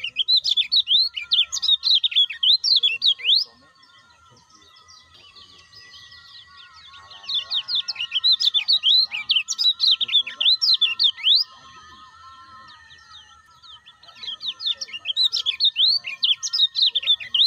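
Caged kecial kuning (a yellow white-eye) singing in three bursts of rapid, high, chattering twitters, with short pauses between them. Faint steady whistling tones sound underneath.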